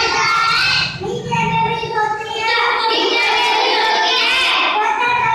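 A young boy singing, his voice holding and sliding between notes.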